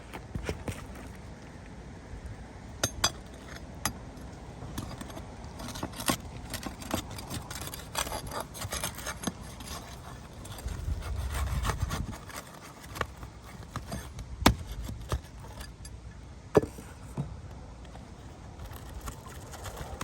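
Scraping and rubbing on roof shingles, with scattered sharp clicks and taps, during hand work on the shingles.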